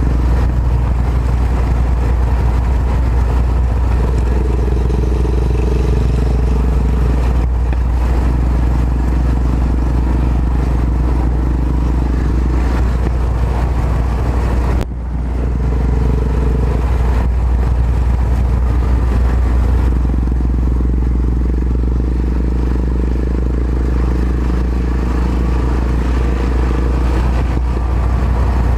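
Yamaha XT 660Z Ténéré's single-cylinder four-stroke engine running under way, its pitch rising and falling with the throttle over a steady low rumble. The sound dips sharply for a moment about halfway through, then picks up again.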